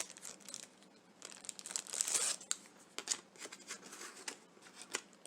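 Packaging crinkling and rustling in irregular bursts, with small clicks, as a pack of craft ornaments is handled; the loudest rustle comes about two seconds in.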